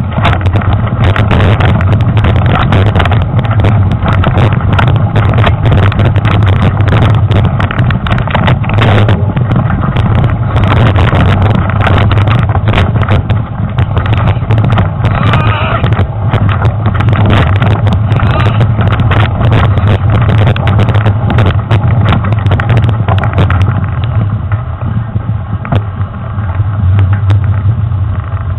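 Mountain bike riding a rough dirt trail, heard through a handlebar-mounted action camera: a constant heavy rumble with dense knocks and rattles as the bars jolt over the ground. It eases briefly near the end.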